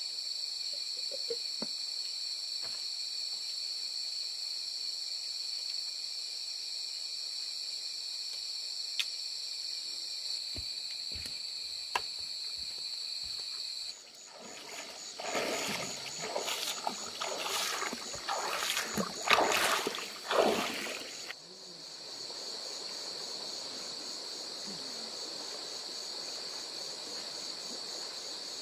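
Night insects, crickets among them, trilling steadily, with a few light knocks. About halfway through comes several seconds of loud, uneven splashing and sloshing as someone wades through a shallow stream. The insects then go on over the stream's steady rush of water.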